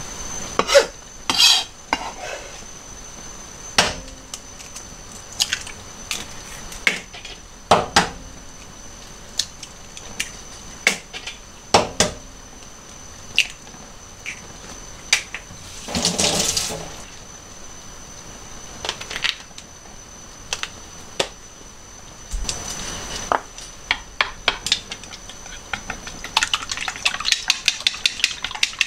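Scattered taps and knocks of eggs and a lacquered bowl being handled on a plastic cutting board, with a short scraping rustle about halfway through. Near the end, chopsticks beat the eggs in the bowl with a fast, even clicking against its sides.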